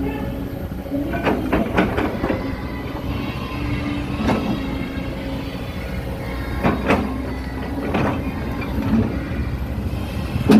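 Excavator running steadily, with a held whine that comes and goes and about half a dozen sharp metallic clanks and scrapes spread through.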